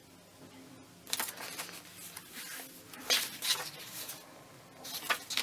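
Paper rustling and handling as the pages of a handmade junk journal and a strip of paper ephemera are moved and smoothed by hand, in a few bursts starting about a second in.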